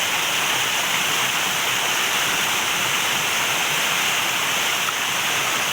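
Steady rush of flowing river water, loud and unbroken.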